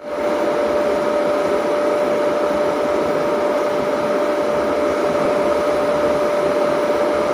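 Steady rushing drone of boiler-house machinery with a constant mid-pitched whine, like a motor-driven blower fan running continuously.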